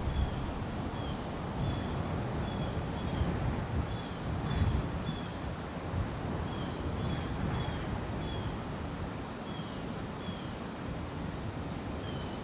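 Wind blowing against the microphone, a rough low rumble that swells and eases over a steady outdoor hiss. A short, high chirp repeats every half second to a second.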